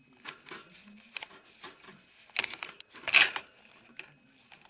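Irregular light clicks and scratching, with a cluster of sharp clicks about two and a half seconds in and a louder, short rattling scrape just after.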